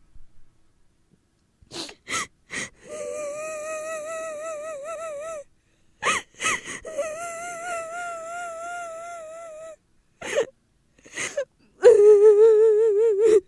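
Three long wavering wailing cries, each lasting a couple of seconds with a quick wobble in pitch, each preceded by short sharp clicking or puffing sounds; the last cry, near the end, is the loudest.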